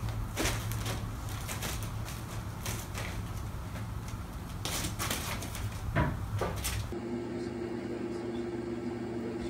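A few light knocks and thumps over a steady low hum, the loudest about six seconds in. About seven seconds in the hum gives way to a different, higher steady hum.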